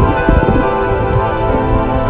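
Background music: sustained synth tones over a busy low beat.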